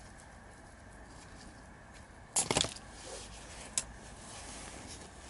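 A knife cutting a small dahlia tuber away from the clump: a short crackling snap about halfway through, then a single click about a second later, over low room noise with a faint steady hum.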